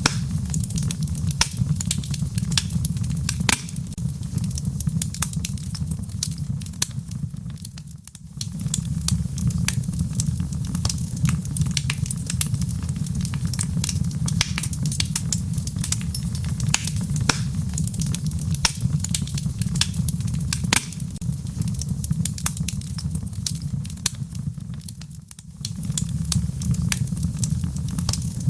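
Wood fire in a fireplace crackling: a steady low rumble of flames under a dense run of sharp pops and snaps. The whole sound briefly drops away twice, about eight seconds in and again near the end.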